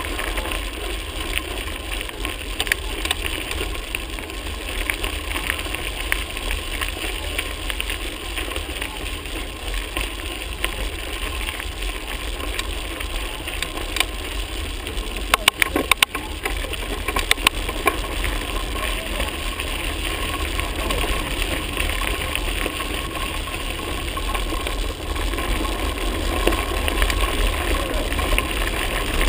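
A mountain bike rolling over a gravel track: steady tyre crunch and rattle, with wind rumbling on the on-board microphone. There is a cluster of sharp clicks and knocks about halfway through.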